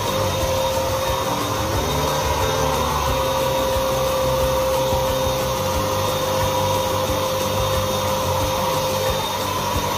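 Handheld electric power tool running steadily, a continuous motor whine.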